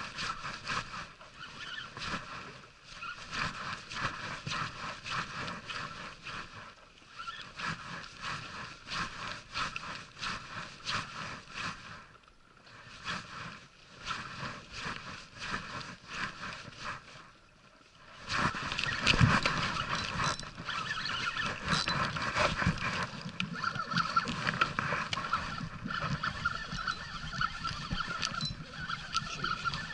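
Small inflatable boat at sea during jigging: water slapping the rubber hull and the rattle of a spinning reel being cranked as the jig is worked. The sound gets louder and fuller from about 18 seconds in.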